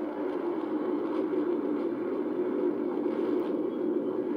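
Steady low rumble of USAF Thunderbirds F-16 fighter jets' engines as the formation flies overhead.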